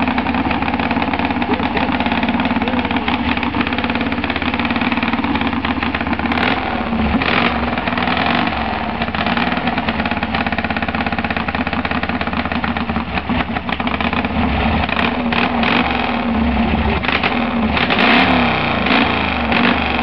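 1950 Vincent Black Lightning racing motorcycle's V-twin engine running loudly and continuously, its revs rising and falling toward the end as the throttle is worked.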